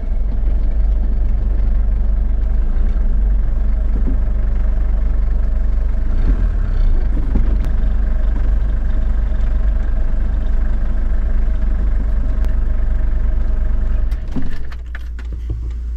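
Motorhome engine running steadily with a heavy low hum and a steady engine note. About 14 seconds in the sound drops and turns quieter.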